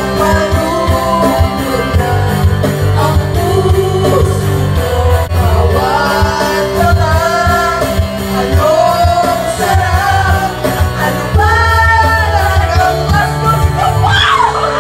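A woman singing Filipino lyrics into a karaoke microphone over a loud pop-rock backing track, her voice amplified through the room's speakers, with a steady bass line underneath.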